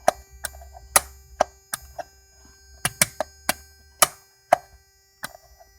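About a dozen sharp clicks at irregular intervals as the toggle switches on a newly wired control panel are flipped while it has no power. A faint low hum underneath stops about four and a half seconds in.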